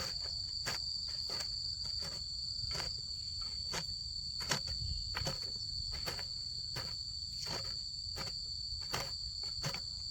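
Steady high insect drone, crickets or similar, running at two high pitches, with many short sharp clicks or knocks a few times a second at irregular spacing.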